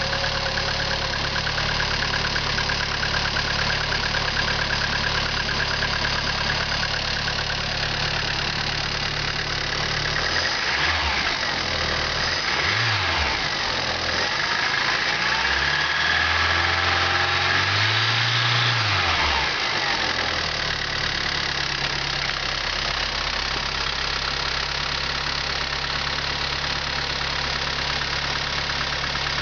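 VW Polo 86C 1.3 four-cylinder petrol engine idling with a clatter (klappern), blipped twice about a third of the way in and then held at higher revs for a few seconds before dropping back to idle. The owner suspects worn hydraulic lifters or possibly the pistons, and says the noise is worst when the engine is cold.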